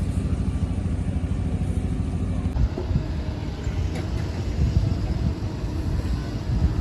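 Steady low rumble of vehicle engines and road traffic, with the background shifting abruptly about two and a half seconds in.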